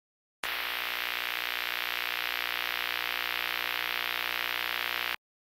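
Electronic static sound effect: a steady hiss with a hum of several steady tones beneath it, starting about half a second in and cutting off suddenly shortly before the end.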